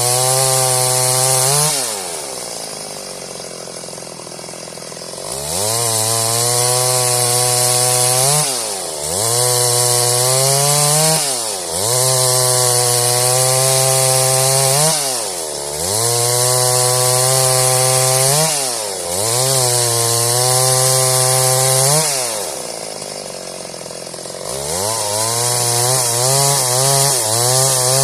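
Stihl MS 382 two-stroke chainsaw run at full throttle cutting wood into boards. The engine pitch dips briefly between cuts, and twice it drops back to idle for a few seconds: about two seconds in, and again about three quarters of the way through.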